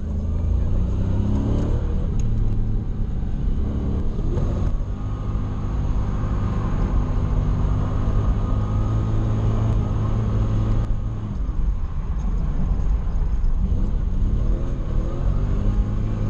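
Toyota 1UZ 4.0-litre V8 in a Nissan 240SX, heard from inside the cabin, running steadily under way with its revs rising and falling a few times.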